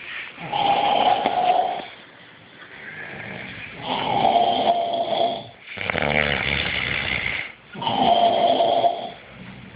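Loud snoring from someone asleep: four long snores about a second and a half each, one in the middle deeper and rattling, with quieter breathing between them.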